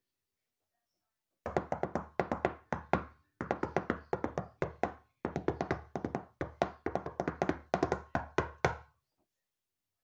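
Rapid knocking, several knocks a second, in four quick runs with short breaks, starting about a second and a half in and stopping near the end.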